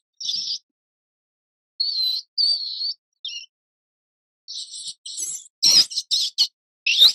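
Small rodent squeaking: short, high-pitched, wavering squeaks in separate bursts with silent gaps between them. The squeaks come thicker and louder in the second half, mixed with a few sharp clicks.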